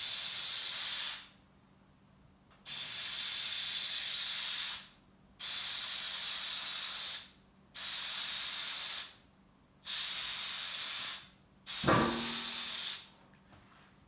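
Airbrush spraying paint in short passes: six hissing bursts of one to two seconds each, with brief pauses between them.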